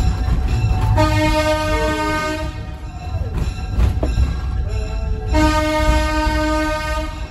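Train horn sounding two long blasts, one about a second in and one near the end, over the low rumble of the moving train.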